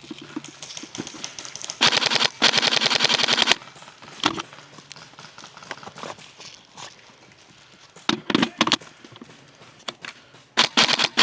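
Airsoft electric rifle firing rapid full-auto bursts: one long burst about two seconds in, a short group of shots around eight seconds, and another burst near the end.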